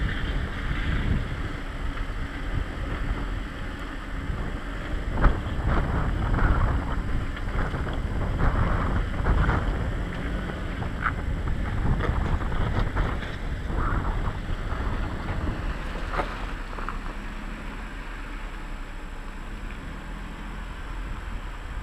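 Jeep driving slowly over a rutted mud-and-rock trail: a low, steady engine and drivetrain rumble with wind buffeting the microphone, and scattered knocks and rattles through the middle.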